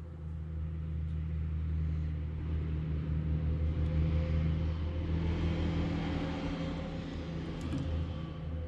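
A motor vehicle engine running with a steady low hum. It grows louder about halfway through and eases off toward the end.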